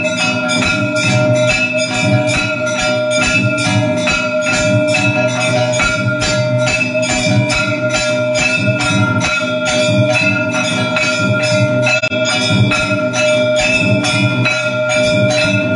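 Temple aarti bells and metal percussion struck in a fast, even rhythm of about four strokes a second, the bells ringing on continuously over the strokes.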